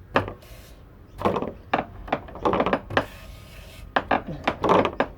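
Diesel injector pop tester being worked by hand: a series of clicks and knocks with short bursts of hiss, roughly one every second or so, as the injector is cycled to check its spray pattern.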